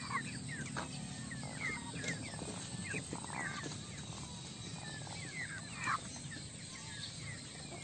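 Newly hatched ducklings peeping: many short, high chirps, scattered and overlapping, over a steady low hum.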